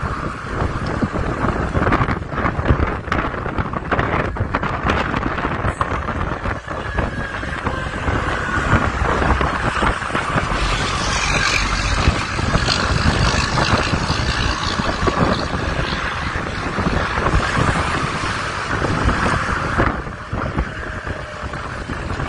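Gusty storm wind buffeting the microphone around an approaching tornado, a dense rushing noise that swells and eases, with road traffic underneath.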